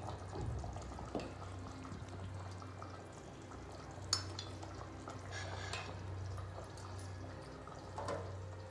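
Faint kitchenware handling, with small clinks and knocks, a sharp click about four seconds in and a brief scrape a little later, over a steady low hum.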